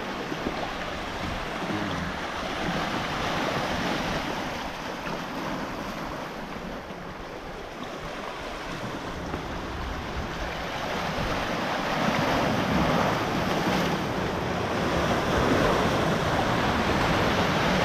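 Sea surf washing against shoreline rocks, a steady rush that swells and eases, getting louder in the later part, with wind buffeting the microphone.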